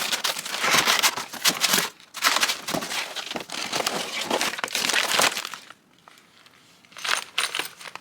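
Cardboard box and its packing material rustling and crinkling as the box is tipped upside down and its contents handled. Busy rustling for about five seconds, a short quiet pause, then a few more rustles near the end.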